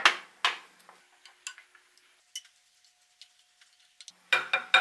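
Wooden spoon knocking and scraping against a ceramic casserole dish while stirring a thick vegetable sauce: two sharp knocks at the start, scattered light ticks, then a quick run of knocks and scrapes near the end.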